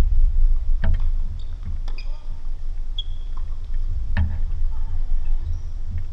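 Tennis ball struck by rackets in a rally, sharp pops about a second in, near two seconds and again past four seconds, over a steady low rumble.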